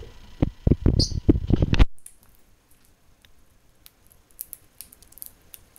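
Quick clattering knocks and rattles for about two seconds, with a short high chirp from a peach-faced lovebird about a second in, then faint small clicks.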